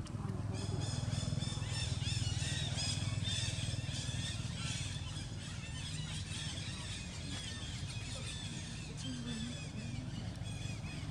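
Many short, high-pitched squealing calls overlapping one another, over a steady low hum.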